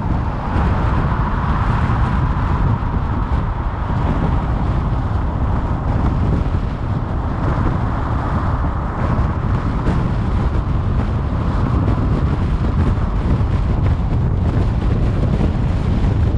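Steady road noise of a car driving at speed on a paved highway: tyre rumble and wind, heard from inside the car.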